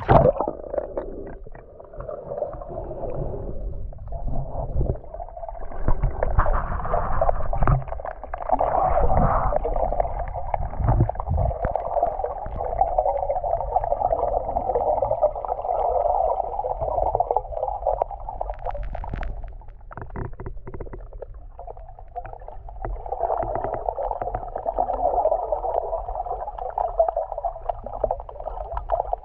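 Sea water heard through an underwater camera: a muffled, continuous rushing with irregular low bumps and knocks, easing briefly about two-thirds of the way through.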